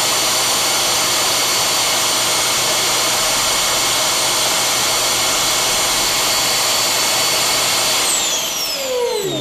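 Dyson upright vacuum cleaner's motor running at full speed with a loud, steady high whine. About eight seconds in it is switched off and the whine falls away as the motor spins down.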